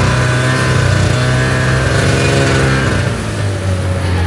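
Snowmobile engine running under way through deep snow, a steady note that drops lower about three seconds in.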